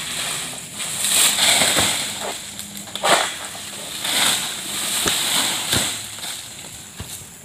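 Oil palm fronds rustling and swishing as a long-pole harvesting sickle (SBL M222A) hacks at them high in the crown, with several sharp cracks from about three seconds in.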